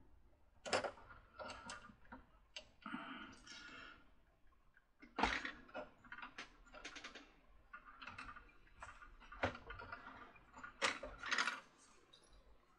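Irregular clicks and short scrapes of small plastic parts and metal tweezers as the rotor assembly of a Mr. Christmas Merry-Go-Round Carousel is worked onto its stepped shaft, with a sharp click about five seconds in.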